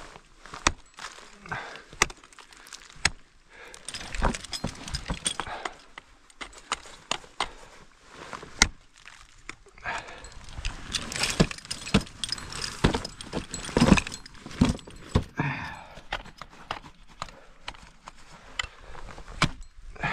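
An ice climber's metal hardware clinking and jangling, with many sharp, irregular knocks and scrapes as ice tools and crampons strike ice.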